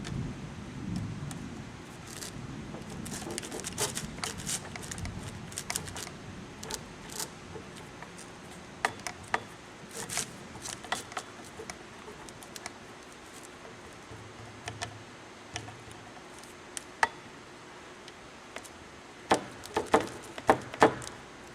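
Irregular light clicks and clinks of small metal parts being handled while a vent window assembly is put back together, with a quick run of louder clinks near the end.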